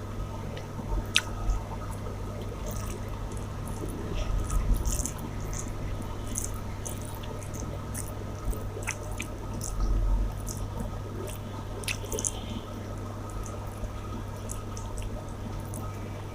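Close-up eating sounds: wet chewing and lip smacks with scattered small clicks while a mouthful of chicken masala and rice is eaten, over a steady low hum.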